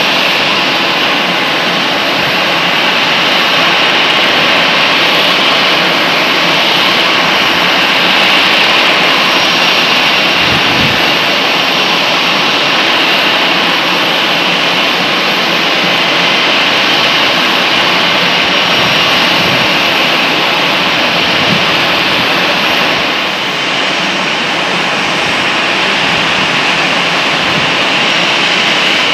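Jet aircraft engines running steadily: a loud, even rushing noise with a thin high whine that stops a little over three-quarters of the way through.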